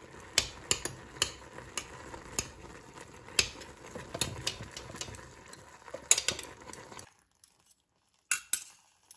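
Long metal chopsticks clinking and scraping against a stainless steel pot while stirring instant noodles, in irregular taps. The sound drops out about seven seconds in, then two more clinks follow.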